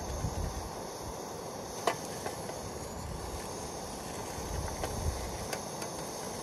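Backpacking canister gas stove burning steadily under a frying pan, a constant hiss, with a sharp click about two seconds in as the pan is handled.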